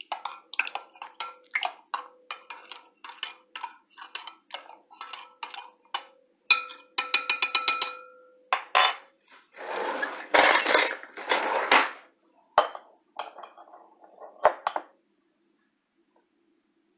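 Metal spoon stirring bouillon paste into broth in a glass bowl, clinking against the glass about twice a second. About seven seconds in comes a quick rattle of clinks, then a couple of seconds of louder scraping. The stirring stops near the end.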